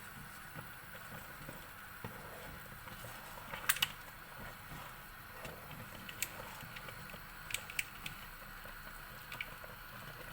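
Thick strawberry jam simmering in a pot, bubbling faintly, with a few sharp clicks of a spoon against the pot. The loudest click comes about four seconds in, and more follow around six to eight seconds in.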